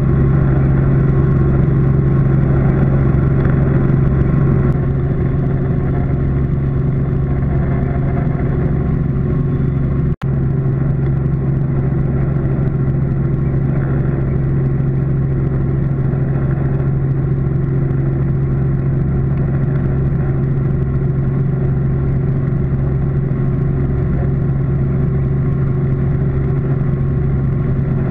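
Robinson R44 helicopter's six-cylinder Lycoming piston engine and rotors running, heard as a loud, steady drone inside the cabin. The sound cuts out for an instant about ten seconds in.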